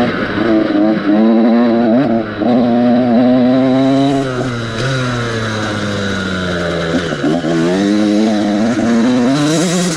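KTM SX 85's 85 cc two-stroke single running hard, the engine note climbing and dropping sharply several times as it is revved and shifted. It pulls cleanly up the revs now that a burnt spark plug has been replaced.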